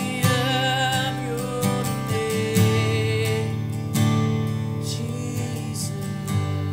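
Taylor cutaway acoustic guitar strummed in steady chords, with a man's voice holding a sung note with vibrato for the first second or so before the guitar goes on alone.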